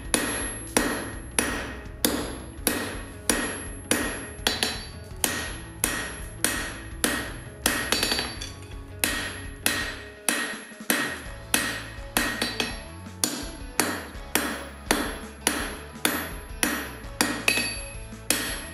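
Hand hammer striking red-hot steel on an anvil in a steady rhythm, about three blows every two seconds, each blow leaving the anvil ringing. The bar is being forged down at a set down to draw out the stock that becomes the knife's tang.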